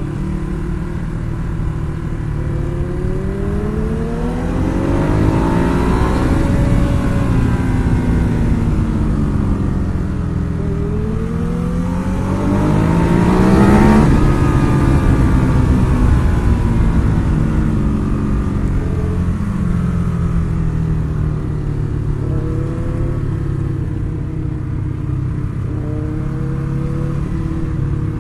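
Ducati Hyperstrada's 821cc twin-cylinder engine being ridden hard: the revs climb to a peak about six seconds in, drop away, climb again to a louder peak about fourteen seconds in, then ease off to a steadier run, over a constant low rush of wind.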